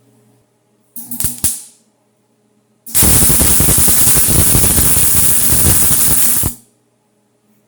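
Electric welding arc tacking steel channel: a brief crackling tack about a second in, then a steady, crackling weld of about three and a half seconds that stops abruptly.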